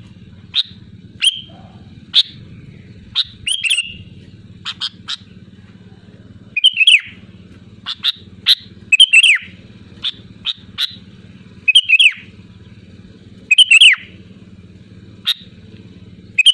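Sooty-headed bulbul (kutilang) calling: short, sharp chirps, many sliding downward, in quick clusters every second or two, over a steady low hum.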